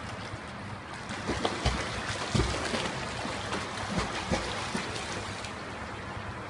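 Swimmer kicking face-down through pool water: a steady wash of churned water with a string of sharp splashes, heaviest around a second and a half to two and a half seconds in and again around four seconds.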